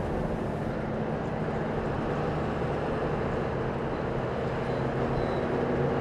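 Bus engine running steadily with road noise, heard from inside the passenger cabin: a constant low drone with an even hum.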